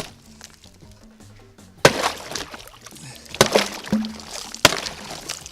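Background music, broken by a few sharp knocks or crunches: one right at the start and three more spaced a second or more apart.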